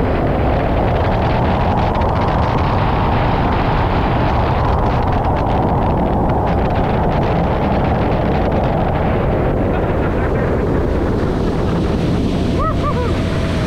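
Wind rushing over the microphone and water spray hissing as a Kawasaki Ultra 310 LX jet ski slows from high speed. Near the end the rush eases and a low steady engine note comes through as it drops toward idle.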